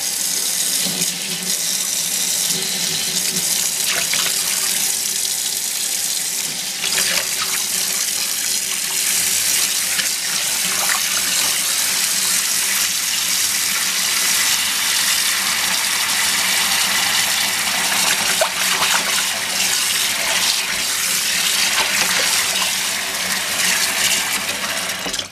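Kitchen tap running steadily into a stainless steel sink, the stream splashing into the shallow water as the sink fills. The flow is shut off abruptly at the very end.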